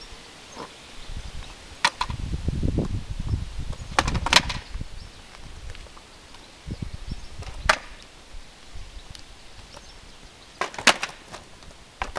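Wooden skateboard deck and wheels clacking against concrete as a small child steps on the tail and off the board: about half a dozen sharp clacks, the loudest about four seconds in, with a low rumble of the wheels rolling just before it.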